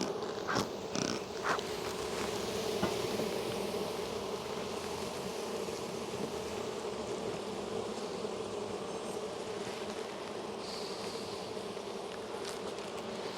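Steady buzzing of a large honey bee colony in an opened hive, a low drone that holds even throughout. A few sharp light clicks sound in the first two seconds or so.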